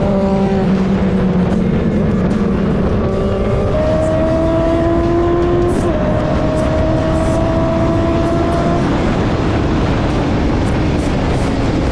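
Suzuki GSX-S 750's inline-four engine pulling hard under acceleration, with heavy wind rush on the microphone. The engine note climbs steadily, dips briefly at an upshift about six seconds in, then climbs again.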